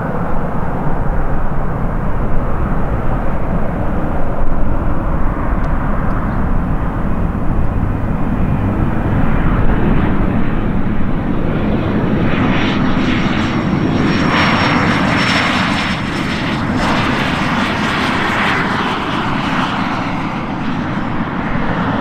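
Cessna 525 business jet's twin Williams FJ44 turbofans during landing: a steady low rumble as it comes in and touches down. About twelve seconds in, a hissing jet whine grows louder as it rolls out along the runway, then eases off near the end.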